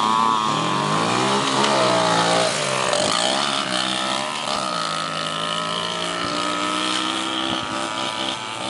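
A Yamaha PW50 two-stroke mini dirt bike and a Yamaha Raptor 80 quad accelerating away together, their small single-cylinder engines revving up and down. The sound grows fainter as they pull into the distance.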